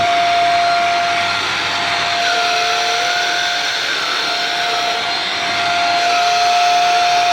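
Shark Rocket TruePet vacuum running with its motorized mini tool, a steady high motor whine over rushing suction. From about two seconds in, its note wavers slightly as the tool works over loose fabric.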